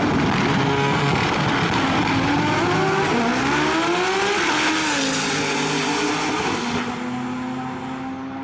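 Two drag-racing cars launching and accelerating hard down the strip, their engine notes climbing in pitch and dropping back at each gear change. The sound fades slowly as they pull away.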